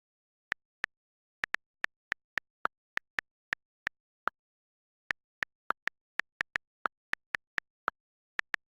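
A run of short, sharp clicks at uneven intervals, two to four a second, with dead silence between them and a pause of nearly a second a little before the middle.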